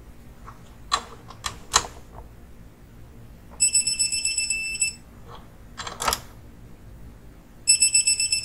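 Digital torque wrench beeping in a rapid pulsed high tone, twice, each for about a second and a quarter, signalling that the set torque is reached while connecting-rod cap bolts are tightened. A few sharp clicks come before the first beeping.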